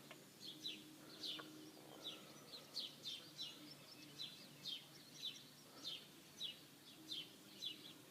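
A songbird calling over and over in short, high chirps that slide downward, a little under two a second, against faint outdoor background noise.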